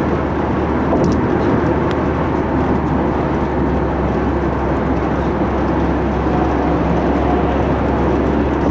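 Steady road and engine noise heard from inside a car cruising at highway speed.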